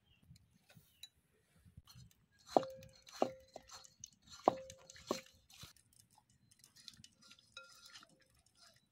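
Four sharp knocks on a terracotta clay bowl, each ringing briefly, in two pairs about a second apart, with soft wet squishing and small clicks as fish pieces are rubbed with turmeric and spices by hand.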